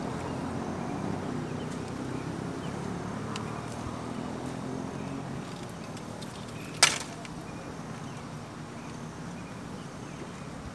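Spinning reel being wound as a hooked fish is brought in, a steady whir over the first five seconds that then fades, followed by one loud sharp slap about seven seconds in while the fish is landed at the water's edge.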